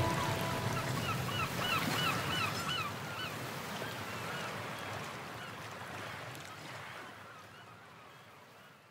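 A quick series of short honking bird calls, about three a second, over a hiss that fades steadily away to near silence.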